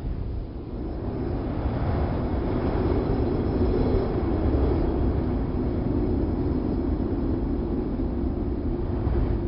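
Wind blowing in a steady, rushing, low rumble, dipping briefly near the start and then swelling a little.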